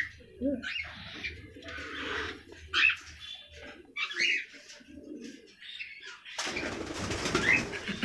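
Caged cockatiels calling: a string of short calls, a few low gliding notes among higher raspy ones. About six and a half seconds in, a louder, noisier rustling stretch begins.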